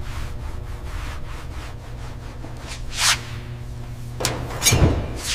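Cloth rag rubbing over a car's painted body panel in repeated polishing strokes, with louder swishes about three seconds in and again near the end, over a low steady hum.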